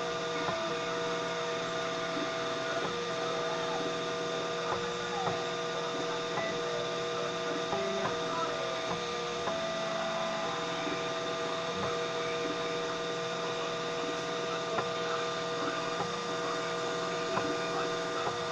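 3D printer's stepper motors whirring as it prints, a set of steady tones that drop out and shift pitch every second or few as the moves change speed and direction, over a constant hum.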